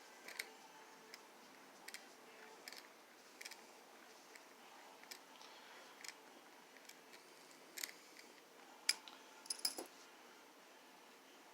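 Scattered small metallic clicks and taps of a screwdriver working at the grip screw of a Charter Arms Undercover .38 Special revolver, with a quick run of sharper clicks near the end. The screw is very tight and won't turn.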